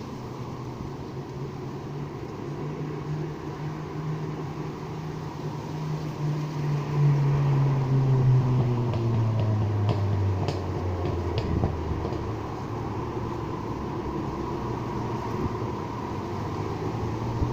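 Road traffic: a vehicle passes, its low engine note growing loudest about halfway through and falling in pitch as it goes by, over a steady background hiss.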